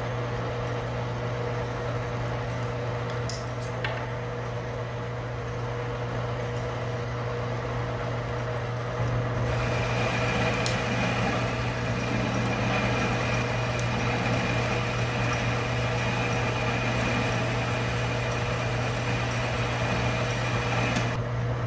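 Metal lathe running steadily, with a couple of light clicks in the first few seconds. About nine seconds in the tool starts cutting the part, adding a hissing cutting noise with a steady high tone that stops just before the end. The tool is dull and in need of a regrind, and it leaves a poor finish.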